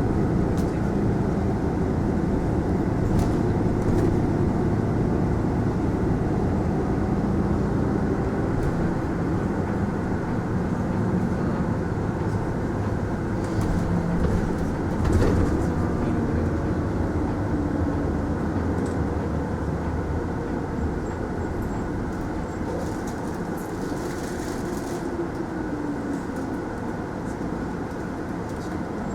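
Mitsubishi Fuso Aerostar city bus running, heard from inside the passenger cabin: steady diesel engine and drivetrain drone with road noise, pitch shifting as the bus changes speed. There is a single sharp knock about halfway through, and the sound slowly gets quieter toward the end.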